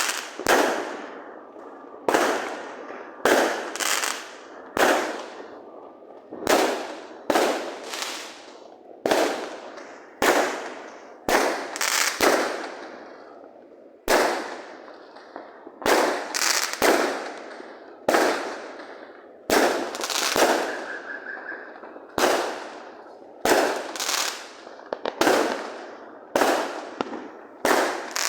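Fireworks going off in a steady barrage, about one bang a second with some in quick pairs, each bang echoing away before the next.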